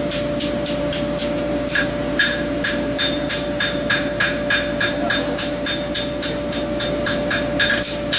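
Two-pound rounding hammer striking a horseshoe heel on an anvil in a quick, steady rhythm of about three to four blows a second, each blow ringing. A steady hum runs underneath.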